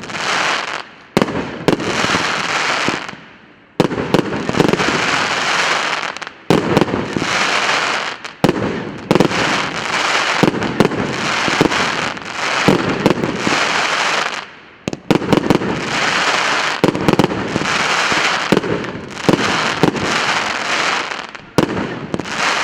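The P8595 "Borodino" firework battery firing shot after shot. Each shot is a sharp bang followed by a second or two of crackle, with irregular gaps of about one to two seconds between shots.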